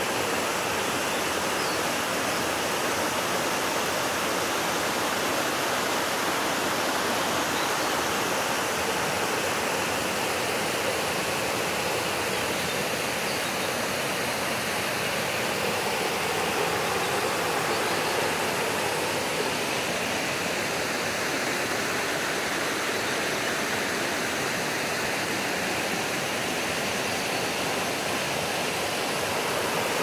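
Shallow mountain stream rushing steadily over rocks and through small cascades between boulders.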